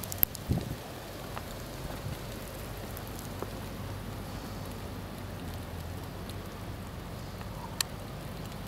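Steady outdoor hiss of wind and falling snow, with wind rumble on the microphone. A few sharp clicks sound near the start and once near the end.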